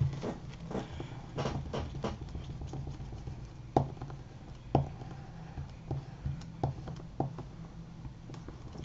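Paper and card being folded over and pressed down by hand on a cutting mat: light rustling and handling noise with scattered small taps, two sharper taps near the middle. A steady low hum runs underneath.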